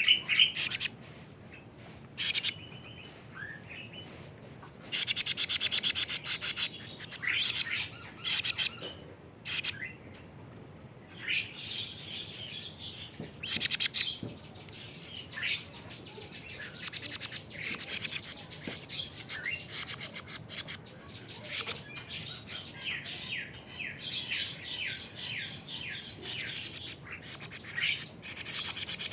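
A young kedasih cuckoo, 41 days old, calling in repeated high-pitched bursts of rapid chattering notes with short pauses between them.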